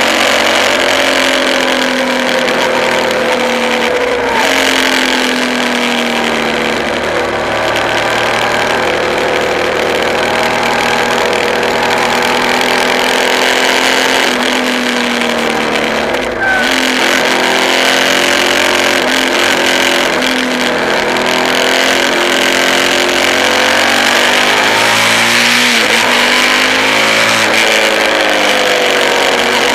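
Motorcycle engine running at road speed under wind rush. Its pitch falls and rises as it slows for bends and accelerates out of them, with a brief drop about halfway through.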